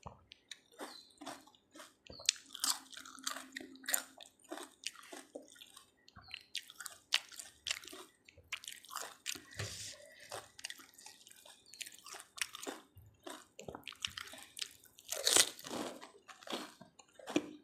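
Close-miked chewing and crunching of pani puri, the crisp fried puri shells cracking between the teeth in rapid, irregular crackles, with a louder crunching bite near the end.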